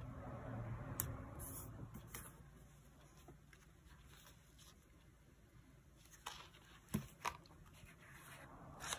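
Quiet handling of paper and sticker sheets: a soft rustle at first, then a handful of light clicks and taps, two of them close together about seven seconds in.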